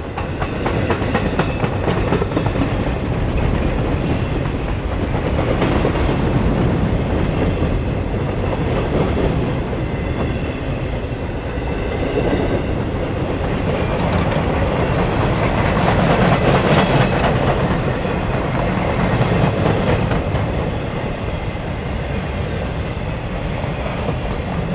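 A freight train of empty Railbox boxcars rolling past: a steady rumble with the clickety-clack of wheels running over rail joints.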